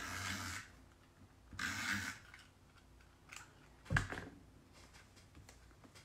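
Paper and card being handled on a craft table: two short rustles, then a sharp tap about four seconds in, followed by a few faint ticks.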